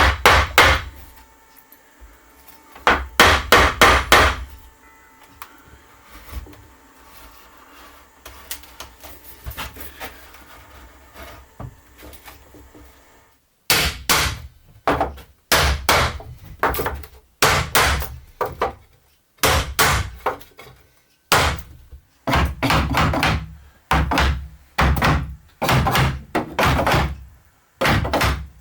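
Repeated heavy knocks and thuds on wood. There are two bursts of blows in the first few seconds, then from about halfway a steady run of quick clusters of blows a little over a second apart, typical of knocking old wooden shade parts apart.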